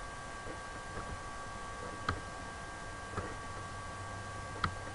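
Quiet room tone with a faint steady electrical hum, and a few soft, short clicks about a second apart.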